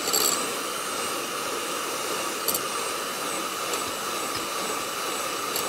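Electric hand mixer whipping egg whites and sugar into a stiff meringue foam: a steady motor whir with the beaters swishing through the whites, and a couple of brief clicks.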